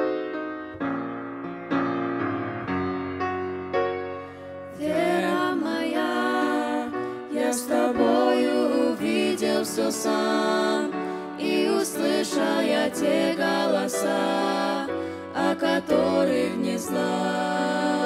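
A grand piano plays a gentle interlude alone. About five seconds in, a vocal trio of two female voices and a male voice comes in singing over the piano accompaniment.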